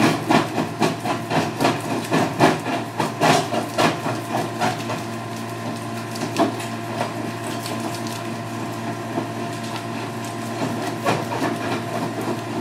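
Red Rhino mini jaw crusher running with a steady engine drone while crushing stone and masonry rubble: a rapid string of cracks and knocks for the first few seconds, thinning to occasional knocks after about five seconds.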